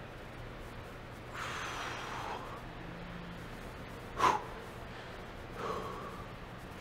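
A man breathing hard while flexing through bodybuilding poses: a long exhale about a second and a half in, a short sharp puff of breath a little past four seconds that is the loudest sound, and a shorter breath near the end.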